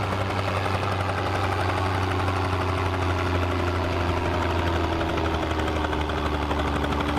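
Tractor engine idling steadily with a low, even drone. It stops abruptly, which is typical of a sound effect laid over the picture.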